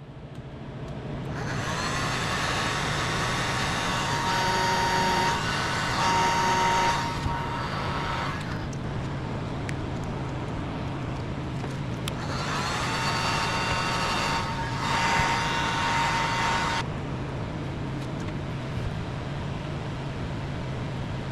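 Heat gun running, shrinking heat-shrink tubing over a spliced motor wire: a steady hum, with a louder rush of air and a high whine in two stretches of several seconds each.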